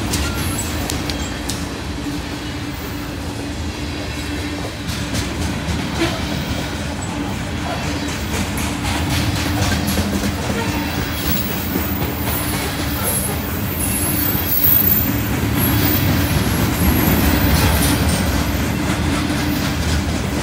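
Freight train cars rolling past close by: a steady rumble of steel wheels on the rails, with thin high-pitched wheel squeal coming in during the second half.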